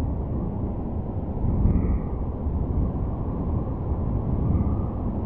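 Very heavy rain falling steadily on the roof and the flooded ground, a dense, even rush with its weight at low pitch, along with water streaming off the roof edge.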